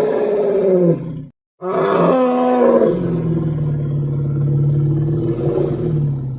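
Creature roar sound effect for a fictional behemoth: a deep roar cuts off about a second in. After a brief silence, a second, longer roar is held steady for about four seconds and fades at the end.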